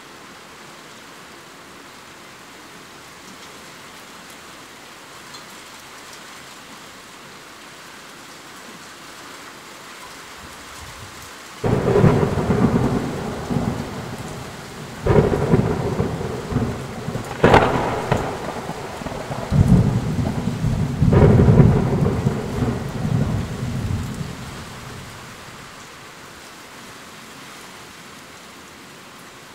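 Steady heavy rain downpour. About twelve seconds in, a sudden loud thunderclap breaks in, followed by several more cracks and low rumbling that die away over about a dozen seconds.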